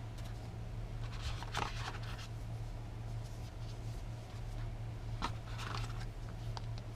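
Hands handling a tablet's packaging and contents: short bursts of rustling and light clicks, one cluster about a second in and another about five seconds in, over a steady low hum.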